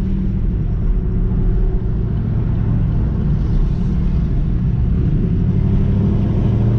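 A car's engine and road noise heard from inside the cabin while driving, a steady low drone.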